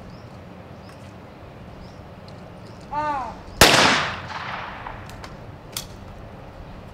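A trap shooter's short shouted call, then about half a second later a single loud 12-gauge shotgun shot that rings out and fades over about a second; the shot breaks the clay target.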